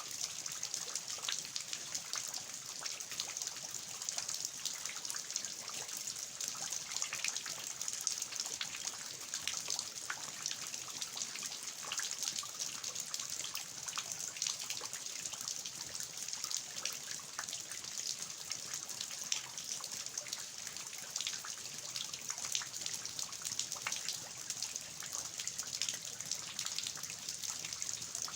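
Steady rain falling, with water dripping and splashing down from the roof eaves: an even hiss scattered with many small drop taps.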